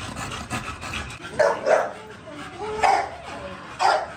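A dog barking several times in short, loud barks, with a brief whine between them.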